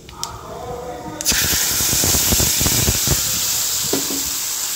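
Kewra fruit pulp going into hot oil tempered with panch phoron and dried chilli in a kadai: a sudden loud sizzle starts about a second in and hisses on steadily.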